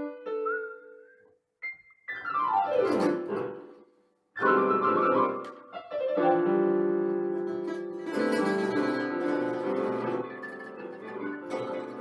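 Electronic keyboard played with a piano voice: a few short notes, a quick run down the keys about two seconds in, then full sustained chords from about four seconds on.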